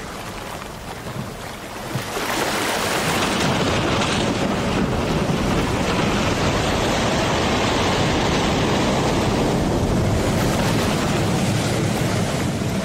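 Heavy surf and wind of a stormy sea, waves breaking and churning. It gets much louder about two seconds in and then runs on steadily.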